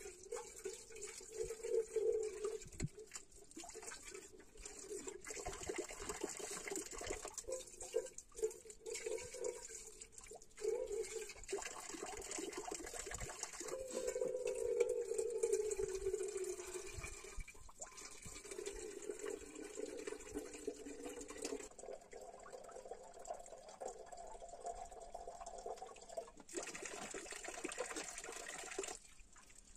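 Water from a stone fountain's spout pouring into a kettle as it is filled, running steadily with a hollow pitched gurgle that shifts in pitch several times.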